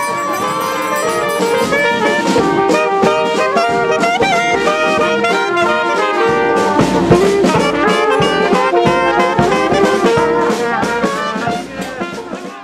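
Brass band music: several horns playing a lively tune together with sharp percussive hits, fading out near the end.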